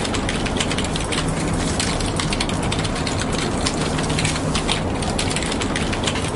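Dense, rapid clicking and crackling with a faint low hum underneath, even in level throughout.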